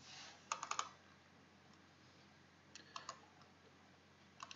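Quiet clicking of a computer mouse and keyboard: a quick run of about four clicks half a second in, another short run of three or four about three seconds in, and one or two more near the end.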